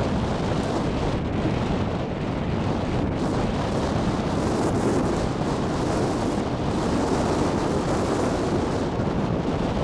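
Wind buffeting the camcorder's microphone: a steady, rushing rumble, heaviest in the low range, with no let-up.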